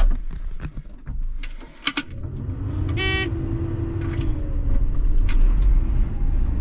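A few sharp clicks and rattles, then a combine harvester's engine running, growing louder from about two seconds in. A short electronic beep sounds about three seconds in.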